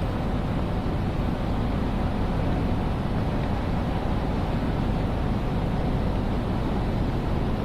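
Steady ambient din of a large railway station hall: an even, low rumble with no distinct events standing out.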